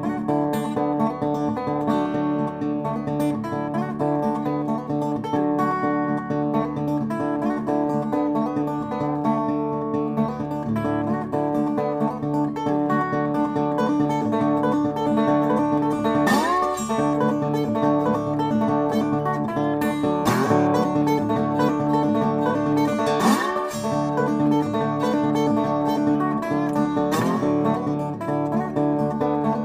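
Acoustic guitar music, plucked and strummed, with a few rising slide notes in the second half.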